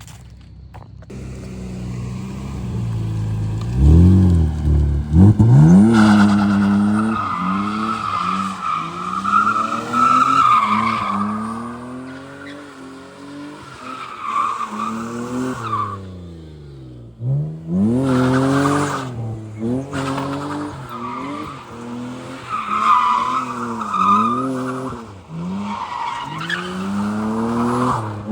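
Car drifting: the engine revs up and down over and over as the throttle is worked, with long stretches of tyre squeal.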